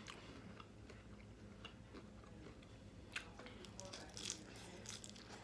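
Close-miked eating sounds: faint chewing and crunching of salad, with a few sharp clicks, the clearest a little after three seconds and about four seconds in.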